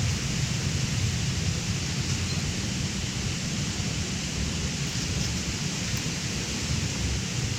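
River water rushing, a steady unbroken noise with a low rumble under it.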